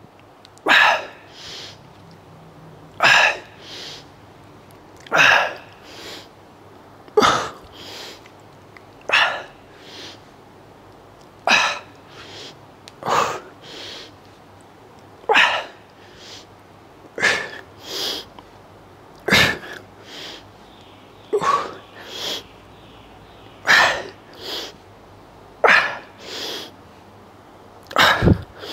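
A man's forceful breathing while curling dumbbells: a sharp exhale about every two seconds, each followed by a softer, shorter breath, keeping time with the reps.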